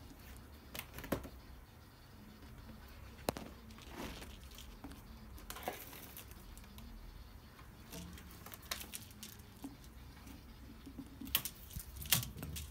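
A cat scrabbling and clambering about a clothes drying rack and shelf: scattered light taps, scratches and rustles, with a quick run of sharper clicks near the end.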